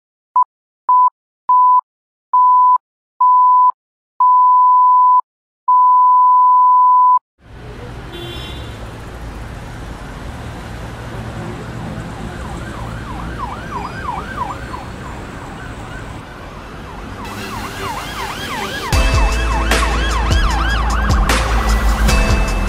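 Film-leader countdown beeps: seven steady beeps at one high pitch, each longer than the last, stopping about seven seconds in. A noisy bed follows with a siren-like wavering tone repeating several times a second. About nineteen seconds in, a heavy low beat comes in and it grows louder.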